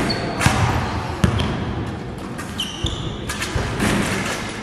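Basketballs bouncing on a gym court, several separate thuds, with a few short high squeaks in between.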